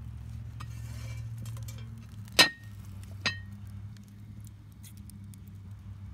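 Red enamelled cast-iron Dutch oven lifted off a grill grate with an oven mitt and set down on stone: a rustle, then two ringing clinks of the pot and lid, the second quieter, just under a second apart.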